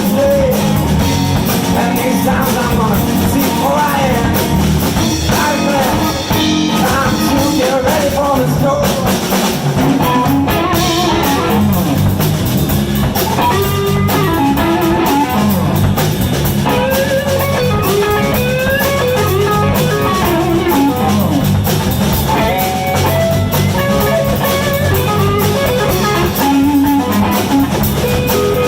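Live blues band playing: a guitar lead with bent notes over bass and drum kit.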